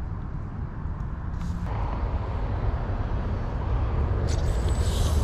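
Steady low rumble of road traffic, growing fuller about a third of the way in, with a brighter hiss added near the end.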